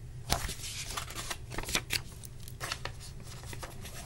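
Page of a paperback picture book being turned and handled: a string of crisp paper rustles and flicks, thickest in the first two seconds.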